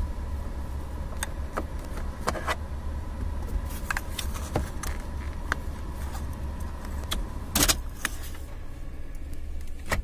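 Plastic clicks and small rattles from a wiring connector being pried and unclipped from the back of a Maruti Alto 800's AC control panel with a screwdriver. A steady low hum runs underneath. The loudest sound is a short rattle about three quarters of the way in.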